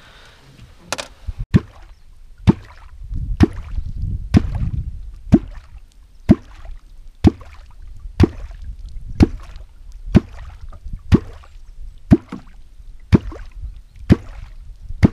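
A Perm kvok (catfish call) striking the water over and over, about one stroke a second, each a sharp hollow plop. It is the rhythmic knocking used to draw catfish up to the baited line.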